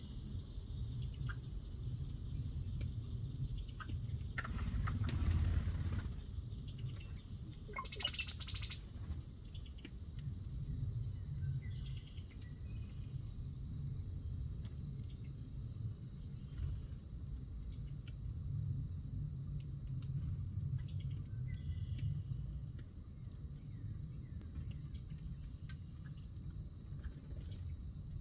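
Wild birds calling at a backyard feeder, with one short, loud call about eight seconds in, over a steady high-pitched hum and a low outdoor rumble.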